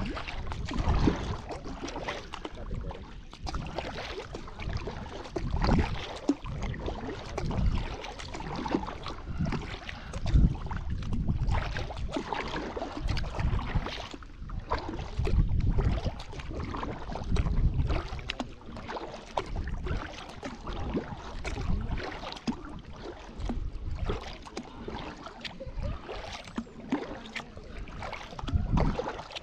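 Kayak paddle strokes on calm water: soft splashes and dripping from the blades, with small clicks, coming in irregular swells every few seconds. Low rumbles of wind on the microphone come and go underneath.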